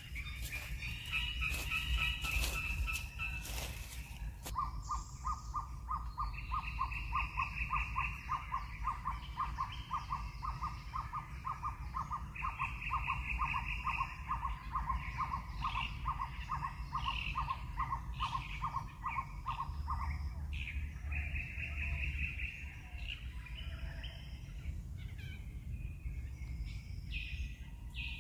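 Wild birds calling in the trees: one repeats a long, even series of short notes, a few a second, for about fifteen seconds, while shorter high trilled phrases come and go. A few sharp clicks sound in the first few seconds, over a low steady rumble.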